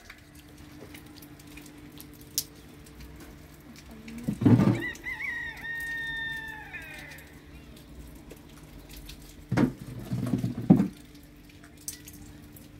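A rooster crows once, a long call of about two and a half seconds that falls in pitch at the end. A few loud dull thumps come as the crow begins and again around ten seconds in, over a faint steady low hum.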